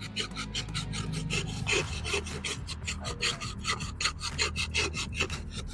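Block of ice scraped by hand back and forth across the blade of a wooden ice-shaving board, a rasping stroke about three or four times a second, shaving ice for a barf ka gola.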